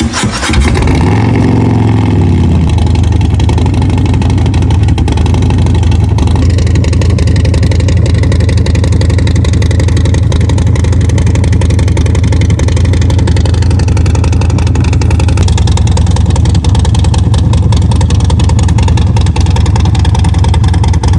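Harley-Davidson 131ci (2147cc) V-twin running through a Bassani 2-into-1 megaphone exhaust with the dB killer removed, very loud. A quick throttle blip rises and falls in the first couple of seconds, then it settles into a steady idle.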